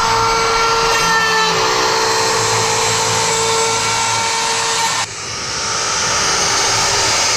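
CNC router spindle whining steadily while its bit mills the stabilizer stock. About five seconds in the sound drops suddenly, then builds back up over a second with more hiss.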